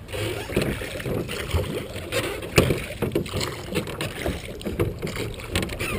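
A small metal jon boat being rowed: oars dipping and pulling through the water, with splashing and lapping at the hull and irregular knocks from the oars.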